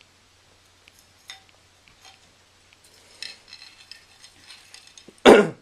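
Christmas ornaments being handled, with faint scattered clinks and a stretch of light tinkling. A brief, much louder burst of noise comes near the end.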